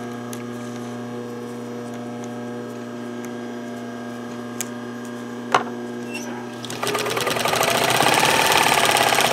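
Household sewing machine starting up about seven seconds in and running steadily with a fast stitching rhythm, top-stitching a separating zipper onto towelling. Before it, a steady electrical hum with a single sharp click.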